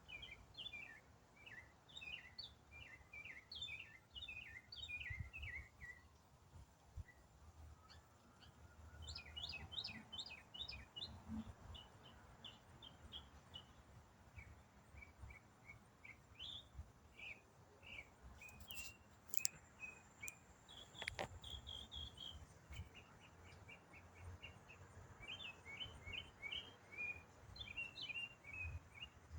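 A songbird singing a long, varied song: fast runs of short, high chirping notes in phrases with brief pauses between them. Faint, with a couple of sharp clicks about two-thirds of the way through.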